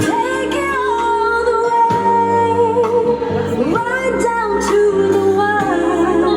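A song with a woman singing long held notes over a steady bass line, played loud through a 15-inch speaker.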